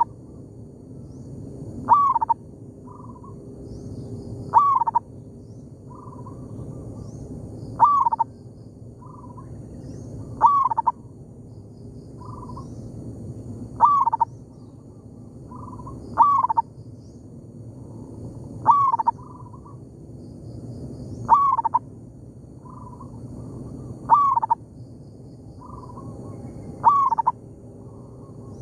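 Zebra doves (perkutut) cooing back and forth: a close bird gives a short, loud call that rises and then falls, ten times at steady intervals of about two and a half to three seconds, and fainter short notes come in between.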